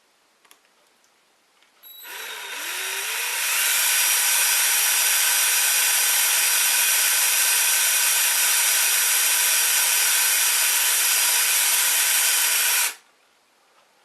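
Cordless drill with a 1 mm bit running as it drills a hole in a circuit board: it starts about two seconds in, winds up in pitch over a couple of seconds, runs steadily with a high whine, and stops abruptly near the end.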